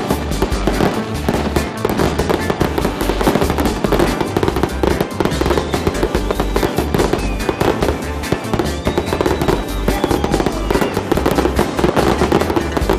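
Fireworks going off in a continuous, dense run of crackles and pops, from ground fountains spraying sparks and small low shells bursting above them.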